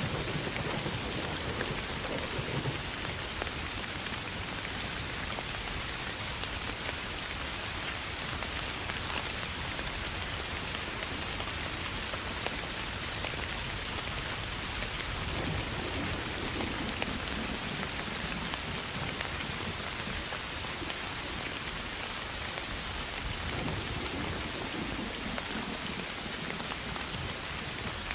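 Steady soft rain, with low rolling rumbles of thunder at the start, again a little past halfway, and near the end.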